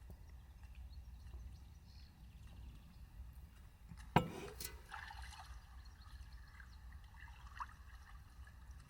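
A low steady rumble with one sharp knock about four seconds in, followed by faint trickling of liquid.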